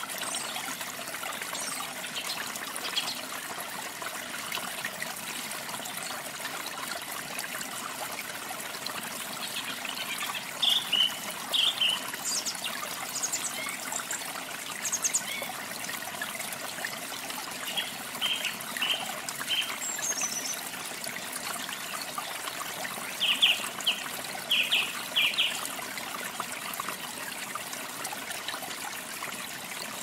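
Water trickling steadily, with birds chirping in short runs of quick notes a few times; the chirps are the loudest sounds.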